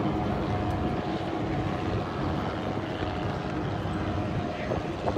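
Helicopters in flight, a steady engine and rotor drone with a low rumble, and a brief sharp tap near the end.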